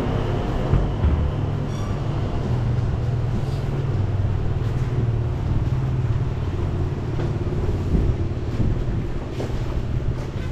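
Street ambience with a steady low rumble of traffic and wind on the microphone, and a brief high chirp about two seconds in.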